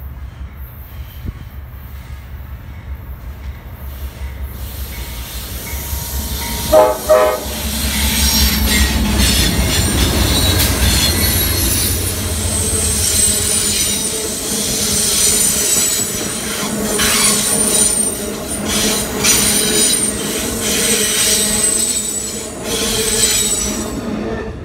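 Amtrak Capitol Limited passenger train passing at speed: the diesel locomotives' rumble grows as they approach, with a short horn blast about seven seconds in. Then the bi-level Superliner cars rush past with rail clicks and high wheel squeal, falling away near the end.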